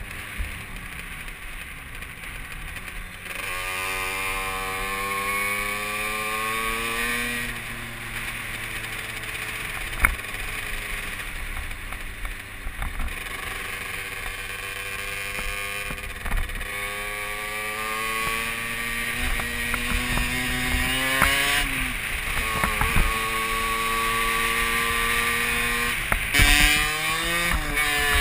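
Derbi Senda dirt bike's engine under way, its revs climbing through several long pulls with a drop in pitch between each, as at gear changes. Near the end the engine is revved quickly up and down.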